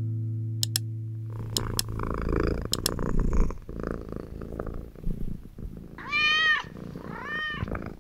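Domestic cat purring with a low rumble, then meowing twice near the end, each meow rising and falling in pitch. A few sharp clicks come before the purring.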